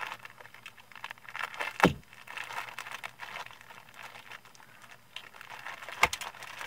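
Clear plastic bag crinkling as a utility knife slits it open, with a sharp knock about two seconds in and another near the end.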